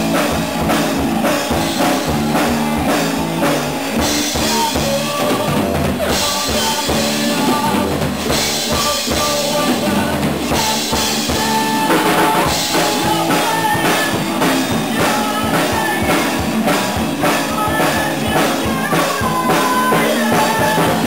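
Live band playing rock: a Ludwig drum kit with bass drum and cymbals, with guitars.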